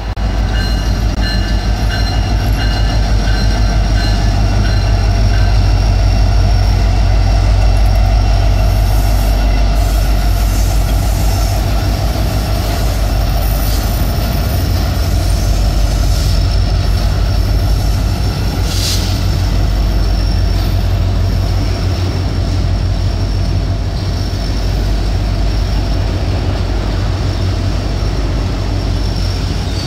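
Norfolk Southern SD70ACe diesel locomotive rumbling past close by, followed by its autorack cars rolling by. There is a steady deep rumble with faint high-pitched wheel squeal over it.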